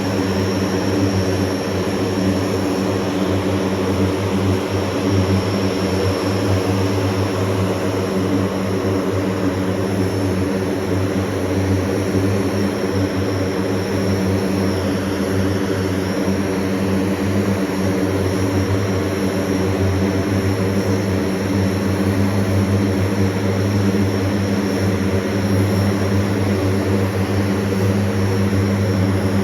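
Propeller aircraft engines running at a steady pitch: a loud, constant drone with a strong low hum that neither rises nor falls.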